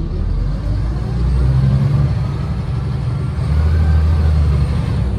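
The Renault PR100.3 bus's Renault MIPR 06.20 six-cylinder 9.8-litre turbocharged diesel pulling under load, heard from inside the cabin, with a rising whine over the engine note. About three seconds in the note dips and drops in pitch as the ZF 5HP500 five-speed automatic shifts up, then it pulls hard again.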